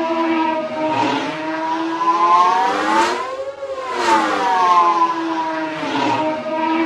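Star Wars Separatist droid starfighter engine loop, prequel-era sound effect: a whining, multi-toned engine drone. Its pitch sweeps down to a low point about halfway through, then climbs back up in mirror image, over a steady hiss.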